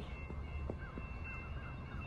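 Railway level-crossing warning bell ringing steadily over a low background rumble, with no train approaching: the crossing, which may be malfunctioning, has stayed activated.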